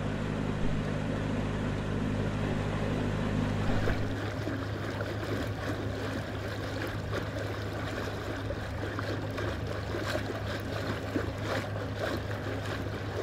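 Narrowboat engine running steadily under way, a low even hum with water noise around it. About four seconds in the engine note thins and the water noise becomes more prominent.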